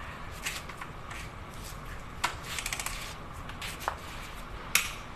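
Long-handled torque wrench tightening connecting rod cap bolts on a HOWO truck engine. A sharp click comes about two seconds in, followed by a quick run of ratchet clicks, then another single click, and a loud sharp click near the end.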